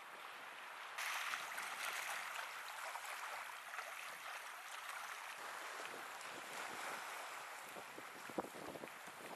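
Seaside ambience: steady wind with small Baltic waves lapping and splashing against the shore, stepping up suddenly about a second in.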